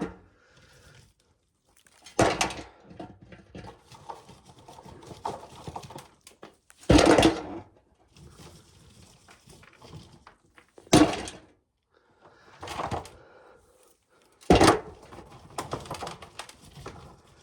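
Dried ear corn being shelled by hand: kernels crackle and rattle off the cobs, with five loud knocks a few seconds apart.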